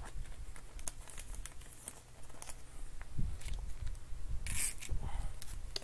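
Scattered light clicks and a brief rustle about four and a half seconds in, from handling on a desk, over a steady low hum.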